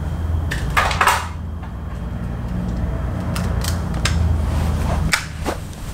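Knocks and clicks of a small plastic toy and nearby things being handled as it is picked up from a shelf, with a steady low rumble underneath.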